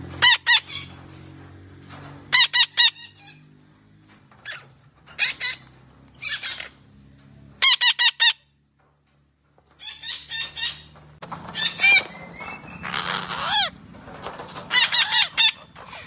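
Red-breasted parakeet calling: loud, harsh squawks in quick bursts of two to four notes, repeated every second or two.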